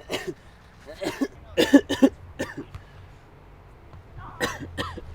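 A person coughing in short hacks: a few spaced single coughs, a quick run of three about a second and a half in, and two more near the end.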